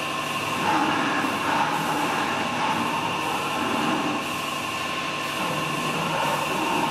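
Compressed-air drive of a pneumatic animatronic T-rex running: a steady mechanical hum with a constant whine, swelling several times as the model moves its head and jaws.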